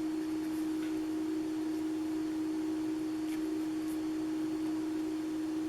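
A steady hum held at one pitch, with a few faint ticks over it.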